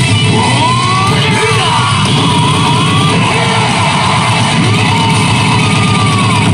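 Hard-rock music with electric guitar playing from the speakers of a Hana no Keiji 3 pachislot machine.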